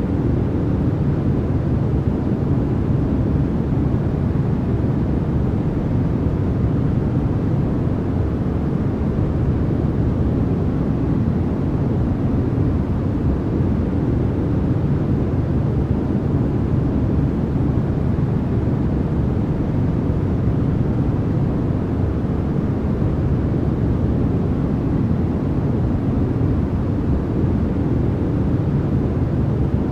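Steady synthetic noise for sleep and masking, billed as white noise but weighted to the low end: an even, deep rushing hiss with no changes or separate sounds.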